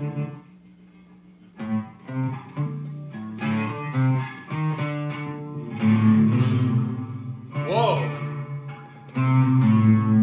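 Acoustic guitar being played: after a short pause, a run of plucked notes and chords that grows louder about six seconds in.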